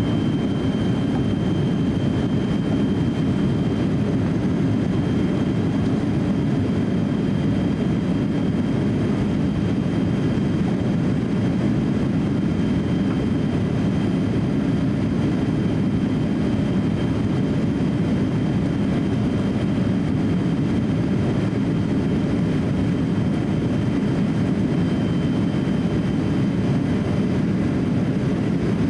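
Steady in-cabin noise of a Boeing 787-8 climbing out after takeoff: the constant low rush of its GEnx-1B turbofan engines and the airflow, heard from a window seat beside the engine, with a faint steady high whine over it.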